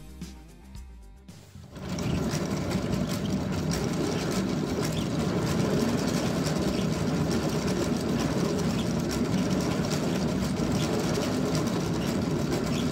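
Wooden gear train of a mechanical speedometer and odometer running fast as the cat exercise wheel spins: a steady, dense rattle of many fine clicks that starts about two seconds in. Faint background music comes before it.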